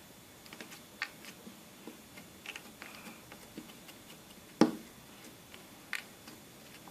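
Slime being handled: scattered small clicks and pops at an uneven pace, with one louder pop about four and a half seconds in and another near the end.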